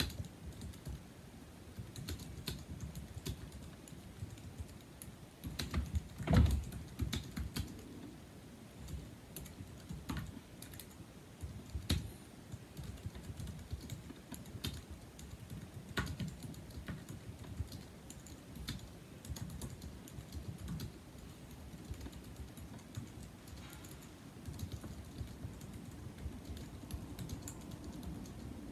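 Typing on a 2007 Apple Aluminum keyboard with numeric keypad (A1243), its low-profile scissor-switch keys clicking in an uneven run, with one louder thump about six seconds in.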